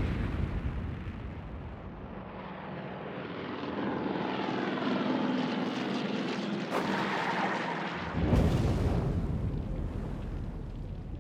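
Propeller warplane engines running in a dense, swelling noise, with a deep boom at the start and another about eight seconds in.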